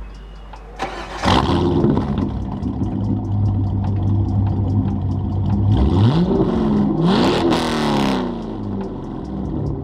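1997 C5 Corvette's LS1 V8 starting about a second in and idling, then revved twice, the pitch rising and falling each time, before it settles back to idle.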